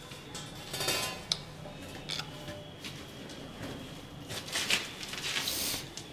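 Ceramic squat toilet pan being handled and lowered into place on a sand-and-mortar floor bed: knocks and scrapes, with a sharp click about a second in and the loudest scraping and rustling in the last two seconds as the pan goes down.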